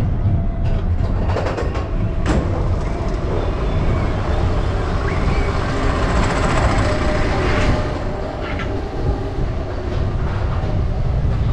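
Expedition Everest roller coaster train rolling along its steel track: a steady low rumble with wheel clatter, and a quick run of sharp clicks about two seconds in.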